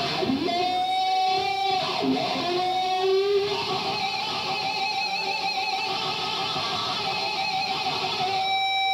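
Unaccompanied electric guitar solo on a solid-body SG-style guitar through a Marshall amp: long sustained lead notes with wide vibrato, a slide up into a note near the start and a string bend about two seconds in.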